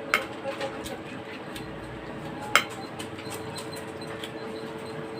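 Spoon and dishes clinking a few times during a meal of bulalo soup, the sharpest clink about two and a half seconds in, over a steady low hum.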